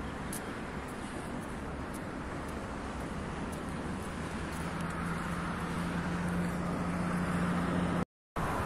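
City road traffic noise, with a steady engine hum that comes in about halfway through and grows slightly louder. The sound cuts out for a moment near the end.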